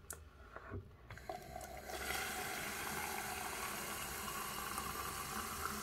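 Tap water running steadily into a container, starting about two seconds in after a few faint clicks.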